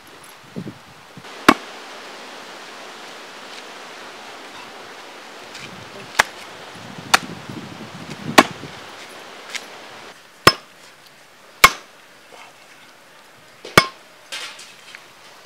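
Blade chopping raw chicken on a wooden tree-stump chopping block: about seven sharp, separate strikes, irregularly spaced a second or more apart.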